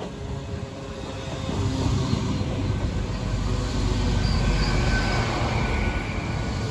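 Great Western Railway Hitachi Intercity Express Train running past a platform: its underfloor diesel engines run and its wheels rumble on the rails, growing louder about a second and a half in as the carriages draw alongside. A faint high whine rises from the wheels or brakes.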